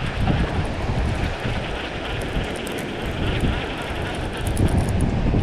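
Wind buffeting the camera's microphone, a steady low rumble with a hiss over it.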